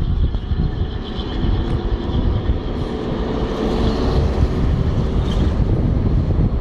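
Street traffic noise with heavy wind buffeting on the microphone; a faint steady hum comes in about three seconds in and fades a couple of seconds later.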